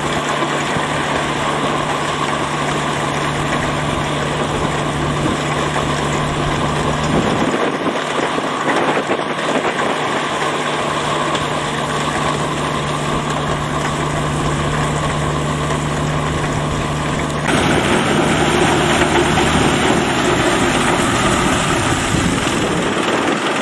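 Shibaura tractor's engine running steadily under load while its rotary levee-building attachment churns and throws wet paddy mud. A steady low hum in the engine noise drops away about seven seconds in, and the sound changes abruptly near the end.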